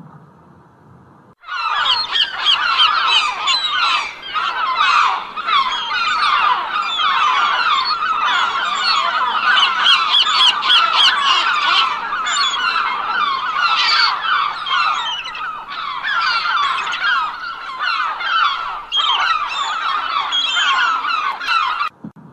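A large flock of geese honking: many short calls overlapping densely. It starts suddenly about a second and a half in and cuts off just before the end.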